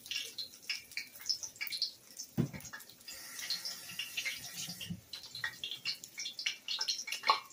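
Egg-battered fish cakes frying in hot oil in a skillet, a continuous sizzle of irregular crackles and pops.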